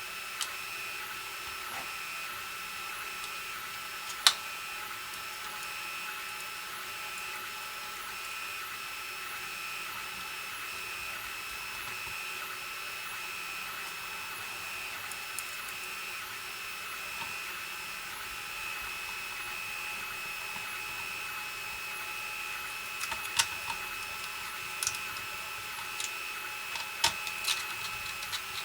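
A steady high-pitched electrical whine, with one sharp click about four seconds in and a cluster of small clicks and knocks near the end, from plastic computer-case parts being handled and clipped into place.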